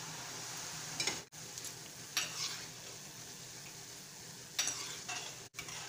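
Gram-flour batter drops (boondi) sizzling steadily as they deep-fry in hot oil. A few short metal clinks and scrapes come from the perforated ladle and wire skimmer working over the pan, about a second in, about two seconds in and near the end.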